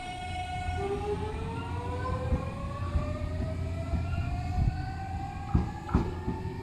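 JR Central 383 series 'Wide View Shinano' electric train pulling away, its traction motors and inverter whining in several tones that rise steadily as it gathers speed, over a low running rumble. There are a couple of sharp clicks near the end.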